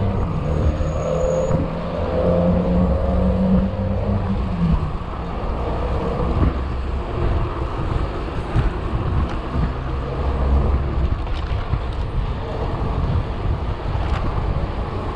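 Wind rushing over an action camera's microphone and tyre rumble as a downhill mountain bike rolls along an asphalt street, with a nearby motor vehicle's engine droning for the first few seconds. A few light knocks from the bike going over bumps come in the second half.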